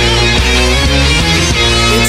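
Southern hard rock song: loud distorted electric guitar chords over bass with a full band, changing chord about every half second.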